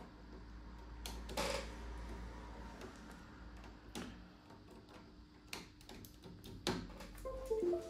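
A few scattered short clicks and taps over a low steady hum, typical of hands working a computer mouse and keyboard at a workbench.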